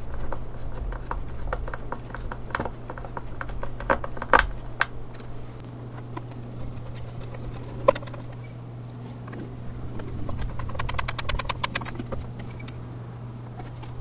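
Hand screwdriver driving small screws through a clear plastic panel into a wooden hive box: scattered clicks and scrapes of the driver tip and screws, with a quick run of ticks near the end, over a steady low hum.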